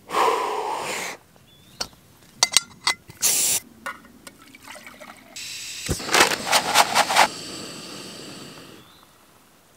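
Jetboil backpacking stove being set up and lit: a brief rush of noise, then clicks and knocks as the cup is fitted onto the gas canister. About five seconds in, a steady gas hiss starts with a quick run of igniter clicks, and the burner runs for a few seconds before fading near the end.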